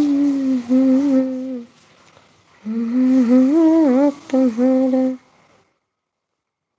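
A woman humming a tune in two phrases with a short break between them, stopping about five seconds in.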